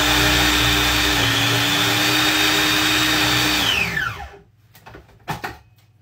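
Electric food processor running steadily as it mixes bun dough with white chocolate chips. About four seconds in it is switched off and its whine falls in pitch as the motor spins down, followed by a few short knocks.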